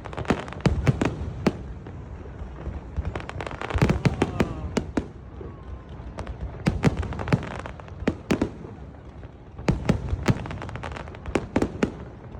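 Fireworks display: volleys of sharp bangs and crackling bursts come in four clusters, with a low rumble between them.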